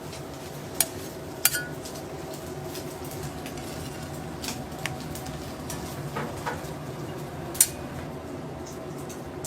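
Metal kitchen utensils clinking and clanking against cookware. There are a few sharp strikes, the loudest at about one second, one and a half seconds and near the end, one of them ringing briefly, over a steady low background noise.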